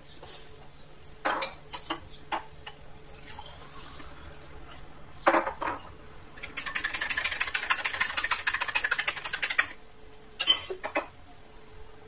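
Metal spoon clinking against a glass bowl of soapy cleaning mixture: a few scattered clinks, then a fast, even run of about ten clinks a second for some three seconds as the spoon is worked quickly, and one more clink near the end.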